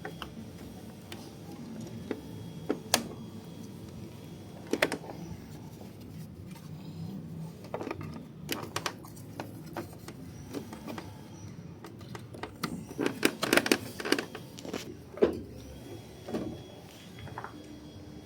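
Scattered clicks and knocks of parts and tools being handled on a washing machine under repair, with a quick run of knocks about 13 seconds in, over a low steady hum.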